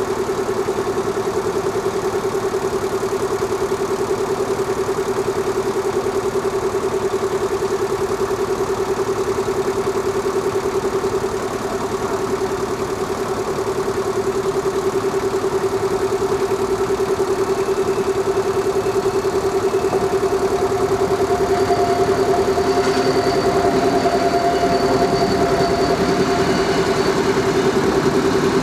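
Level-crossing warning bell ringing continuously, a steady rapid ringing, while the crossing is closed for a train. From about two-thirds of the way in, the approaching Flåm Railway train adds higher tones and the sound grows a little louder as the train reaches the crossing.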